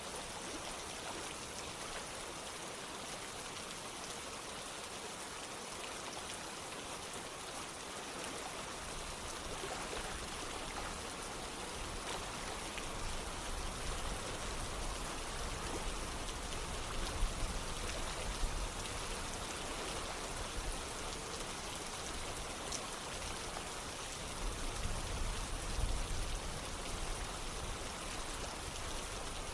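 Steady rain falling, mixed with running water like a stream, an even hiss with no pauses. About a third of the way in a low rumble joins underneath, swelling briefly twice.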